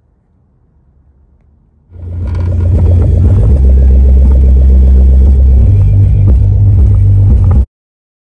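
Loud, bass-heavy music played through the trunk-mounted subwoofer of a Mach 1000 audio system. The deep bass notes change in steps. It swells in about two seconds in and cuts off abruptly near the end.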